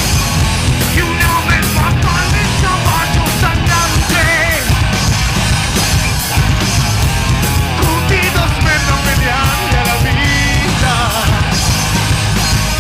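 Heavy metal band playing live: distorted electric guitars, bass and drums, with a high lead melody wavering in pitch above them.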